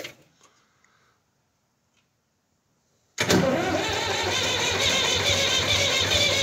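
Near silence for about three seconds, then a David Brown 880 tractor's diesel engine starts abruptly and runs steadily: its cold start after a service, with new fuel filters and fresh oil, helped by the heater plug.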